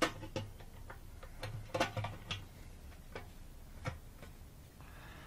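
Irregular clicks and light taps from the fuel pump module of a Harley-Davidson Softail being handled and worked into the fuel tank opening, about ten in all, bunched near the start and about two seconds in.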